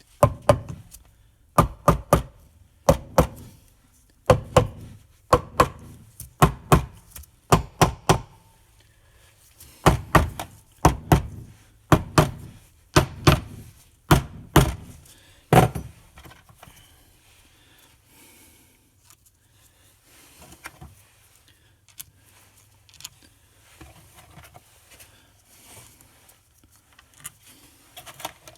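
Cam cover being tapped down onto the engine case: a run of sharp knocks, about one a second, for the first half, then quieter clicks and handling of small parts.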